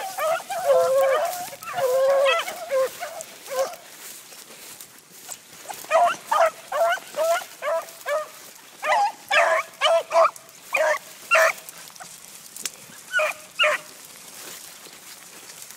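Pack of beagles baying as they hunt through brush. Overlapping voices fill the first few seconds, then after a short lull there is a string of short, separate cries, with two more near the end.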